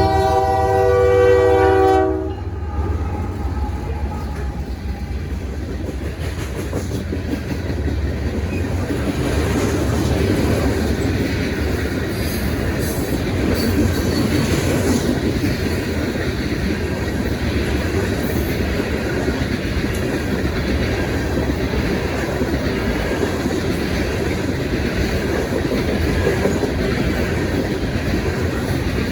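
A freight train's air horn sounds a chord and cuts off about two seconds in. Then comes the steady rumble and clickety-clack of freight cars rolling past on jointed rail.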